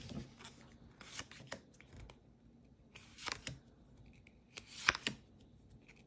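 Pokémon trading cards sliding against each other as they are flipped through one at a time, giving several short papery swishes a second or two apart.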